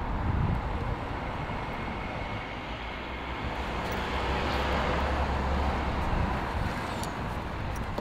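Road traffic noise: a steady rush with a low rumble that swells louder about four to six seconds in as a vehicle passes, then eases off.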